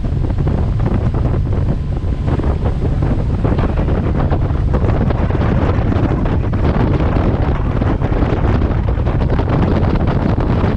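Strong wind buffeting the microphone while moving fast over water: a loud, steady, low rushing noise with no let-up.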